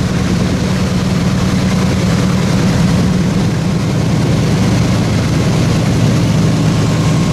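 Airboat engine and caged air propeller idling steadily: a loud, even low hum with no change in speed.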